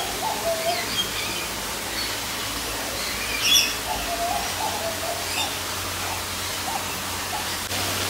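Birds calling and chirping: short wavering calls repeat throughout, and the loudest, brightest cluster of chirps comes about three and a half seconds in. A steady hiss of background noise runs underneath.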